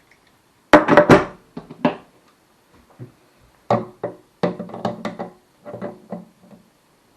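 Background music of plucked acoustic guitar: a few strummed chords about a second in, then a run of single plucked notes.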